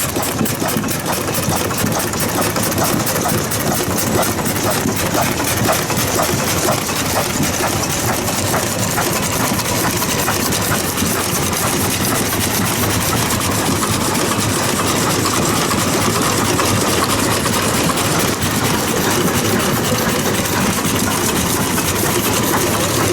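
Vintage stationary engine (hatsudōki), an old single-purpose farm engine, running steadily with an even, rapid firing rhythm, just got going again after several years out of use.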